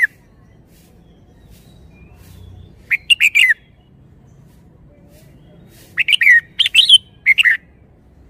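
Red-whiskered bulbul singing: two short bursts of quick, warbling notes, one about 3 seconds in and a longer one about 6 seconds in.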